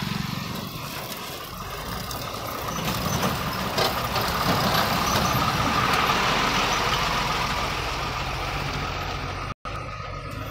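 Narrow-gauge diesel train passing close by: a low pulsing engine rumble, then the clatter and rush of wheels on the rails building to its loudest about halfway through, with a couple of sharp knocks a little before that.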